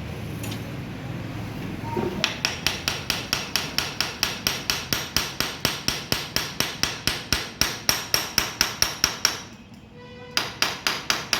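Rapid hammer blows on metal, about four a second, each with a short metallic ring. They start after a steady low hum, pause briefly about ten seconds in, then resume.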